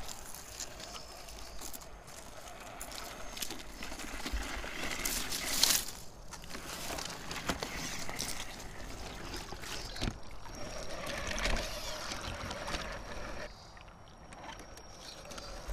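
Radio-controlled scale crawler truck driving over rock and leaf litter, its drivetrain whirring and tyres scraping, with a stream trickling. A thin steady whine comes in past the middle.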